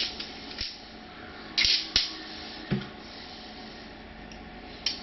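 Protective plastic film being peeled off a new GoPro Hero 9 camera: several short, sharp rips of plastic with a light handling knock in between.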